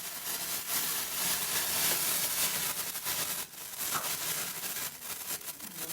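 Potassium nitrate and sugar smoke mixture hissing with a light crackle. The hiss dips briefly about halfway through and eases near the end.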